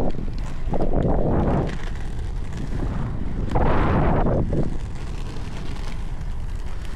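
Inline skate wheels rolling over rough, cracked asphalt, with wind buffeting the microphone. Louder rushes of noise come about every three seconds.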